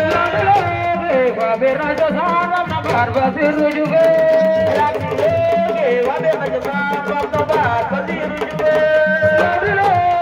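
Sabar drums playing a dense run of quick strokes while a voice chants over them in long, wavering held notes.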